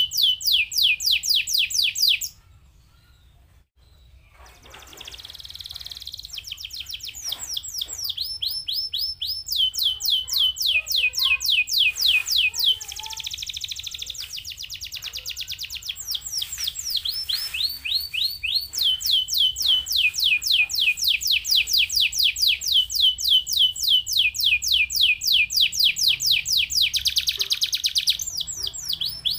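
Domestic canary singing fast trills of rapidly repeated notes, each falling in pitch. The song breaks off about two seconds in, then starts again soft and builds back to full volume.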